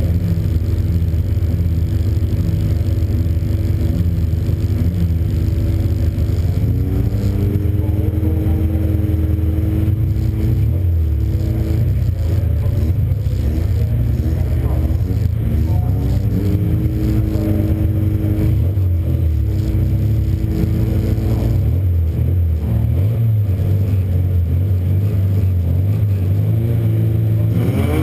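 Euro Rod race car's engine heard from inside the car, running while held stationary, its revs raised and held for a few seconds then let back down, twice. Near the end the revs climb as the car pulls away.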